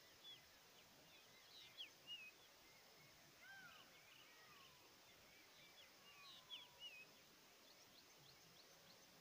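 Faint birdsong from several birds: short high chirps, bunched about a second and a half in and again about six seconds in, with a few lower, drawn-out falling whistles between, over a faint steady hiss.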